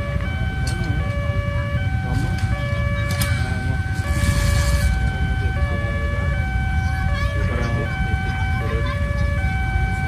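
Railway level-crossing warning siren sounding continuously, alternating between two pitches about every three quarters of a second. Under it is a steady low rumble from the waiting motorbikes.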